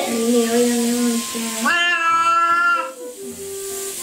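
Domestic cat yowling in protest at being bathed: long, drawn-out meows, a low one, then a higher one a little under halfway in, then a short low one near the end.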